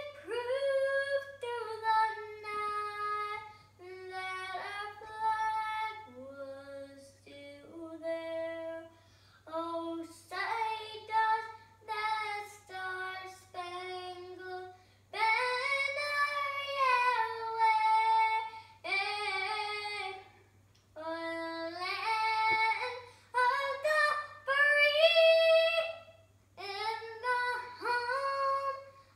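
A young girl singing solo and unaccompanied, in phrases of held, sliding notes with short pauses for breath between them.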